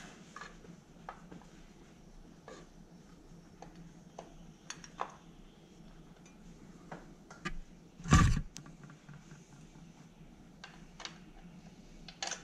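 Scattered light metallic clicks and clinks from hand work on the carburetors of a Honda Magna 750 V4 motorcycle, with one louder thump about eight seconds in.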